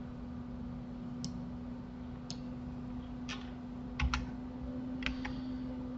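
Isolated computer keyboard key presses and mouse clicks, roughly one a second with a quick double click about four seconds in, over a steady low electrical hum.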